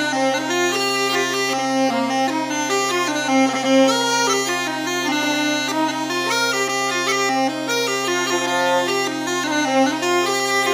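Scottish smallpipes and fiddle playing a tune together: a quick-moving melody over the pipes' steady drone.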